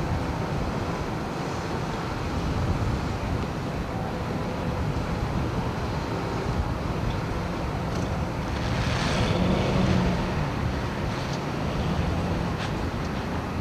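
Steady low rumble of heavy work-vehicle engines running, with wind noise on the microphone. A brief hiss rises and fades about nine seconds in, and a few light clicks come near the end.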